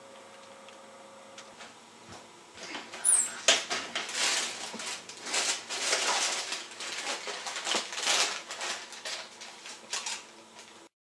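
Things being handled on kitchen pantry shelves: jars, bottles and containers clattering and knocking, with rustling of packets. It starts after a couple of seconds of faint hum, has a couple of sharp knocks early on, and cuts off abruptly near the end.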